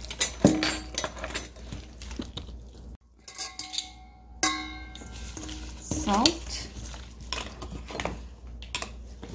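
Stainless steel mixing bowl clanking and scraping as raw chicken thighs are turned and rubbed with spices in it by a gloved hand. Twice, near the middle, the bowl rings out with a clear metallic tone.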